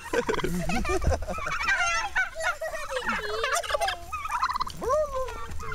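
A flock of domestic turkeys gobbling, several birds calling over one another in quick, warbling bursts.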